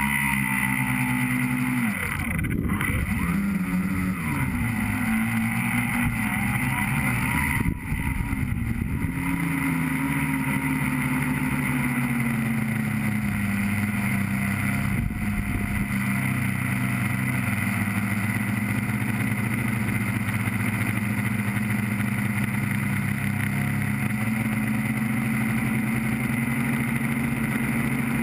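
Tricopter's electric motors and propellers whining, heard close from the camera on the craft, the pitch rising and falling with throttle changes during roughly the first ten seconds, then holding steady.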